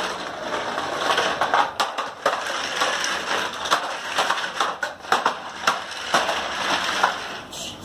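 Toy trucks pulled on strings over rough concrete, wheels and bodies scraping and rattling, with frequent small knocks.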